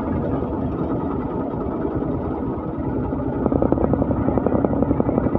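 Three-wheeler tempo's engine running, heard from its cab: a steady, rapid low pulsing as the vehicle rolls slowly along, getting a little louder about three and a half seconds in.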